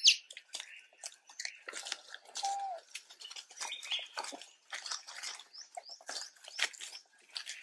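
Dry leaf litter crackling and rustling as young macaques forage and scamper close by, with a few short chirping calls, one right at the start and others about two and a half and four seconds in.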